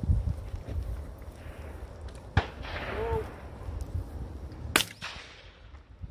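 Two sharp shotgun reports about two and a half seconds apart, over a low wind rumble on the microphone.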